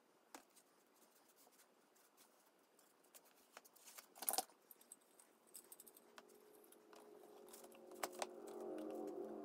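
Quiet hand work on a glue-up: faint handling clicks, a brief clatter of wooden knocks about four seconds in as a walnut board is laid onto the glued strip, then metal clinks of a steel C-clamp being fitted near the end. A faint steady hum builds over the last few seconds.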